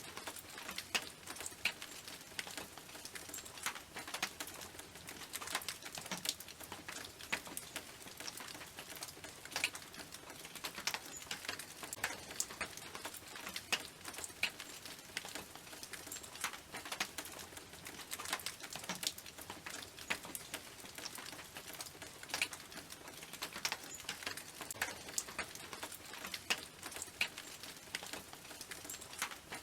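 Rain falling on a tin roof: a steady patter with many sharp individual drop strikes scattered through it.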